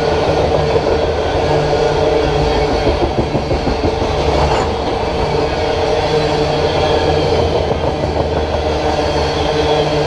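Loaded coal hopper cars of a freight train rolling past at close range: steel wheels running on the rails with a loud, steady noise and a few steady tones over it.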